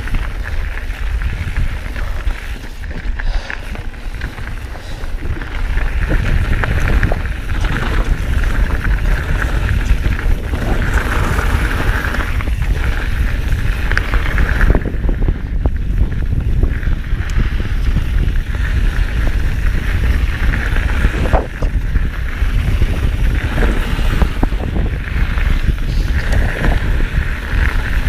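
Mountain bike riding over a dirt trail: steady tyre and rolling noise with scattered knocks and rattles from the bike, and wind buffeting the microphone.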